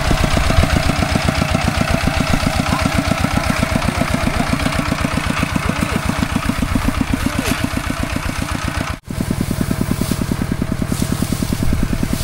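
Tractor engine running steadily, its firing strokes coming as a fast, even beat; the sound cuts out for an instant about nine seconds in.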